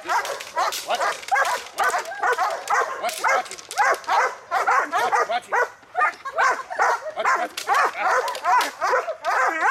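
Young German Shepherd barking repeatedly and rapidly, about two to three barks a second, at a helper agitating it with a stick, as in protection bark training.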